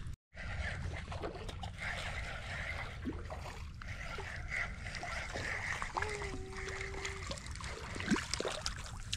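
Wind rumbling on the microphone, with light splashing and dripping of water at the shoreline. A short steady hum sounds about six seconds in.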